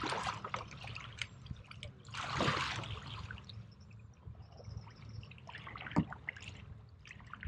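Water splashing and trickling, with two louder surges of splashing about two and a half seconds apart and small ticks and a sharp click in between.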